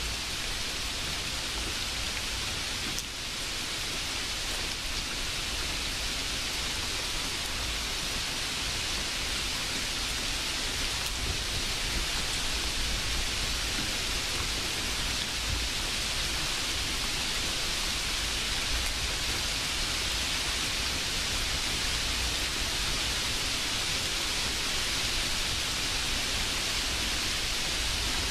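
A steady, even hiss with no distinct events, holding at the same level throughout.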